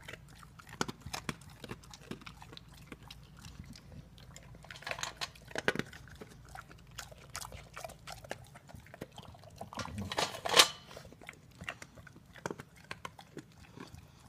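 English bulldog eating from a bowl: irregular chewing and clicking, with louder spells about five seconds in and again around ten seconds in.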